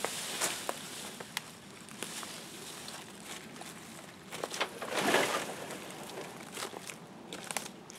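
Rustling and crackling of cedar branches and dry leaf litter underfoot as cut cedar trees are handled, with a louder swish about five seconds in as one tree is heaved onto a utility vehicle's cargo bed.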